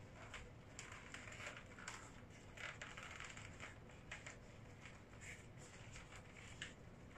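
Faint, irregular crinkling and rustling of large green leaves being folded by hand around a filling to wrap a parcel.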